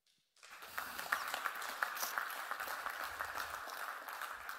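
Audience applauding, a dense steady clapping that starts about half a second in and begins to fade near the end.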